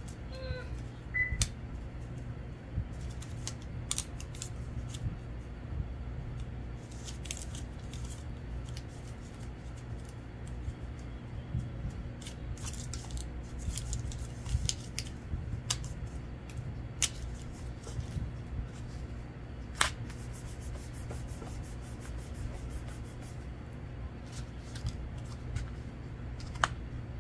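Scattered light clicks and ticks of paper craft materials being handled, over a steady low hum. The sharpest clicks come about twenty seconds in and again near the end.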